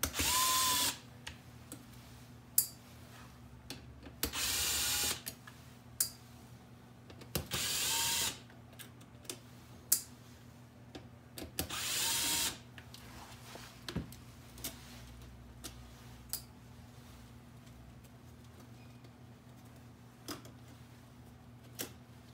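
Power screwdriver backing out four small Phillips screws. It makes four short runs of about a second each, the motor whine rising and then holding. Light clicks of small parts being handled come between the runs.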